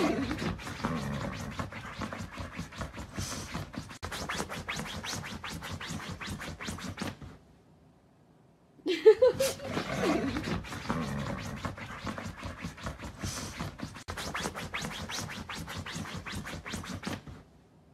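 Husky digging at a bed sheet on a mattress, its claws scratching the fabric in rapid strokes. It comes in two bouts of about seven seconds, about a second of silence between them, and each bout opens with a short rising whine.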